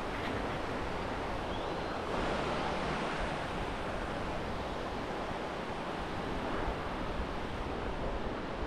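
Steady rushing wind noise buffeting an action camera's microphone while riding a bicycle, with a low rumble underneath.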